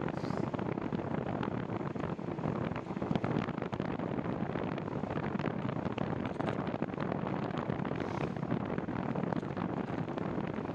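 Wind rushing over the microphone of a moving bicycle rider, a steady buffeting noise with many small clicks and rattles mixed in.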